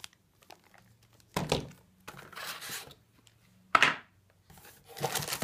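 Plastic packaging crinkling and rustling as it is handled, with a knock about a second and a half in and a sharper, louder knock near four seconds in.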